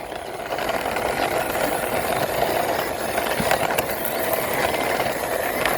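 Plastic toy army tank pushed along by hand, its wheels rolling and rattling steadily with scattered small clicks.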